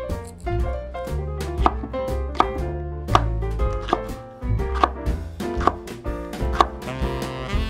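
Chef's knife slicing a yellow bell pepper into strips on a wooden cutting board: regular knocks of the blade through the pepper onto the board. Background music plays underneath.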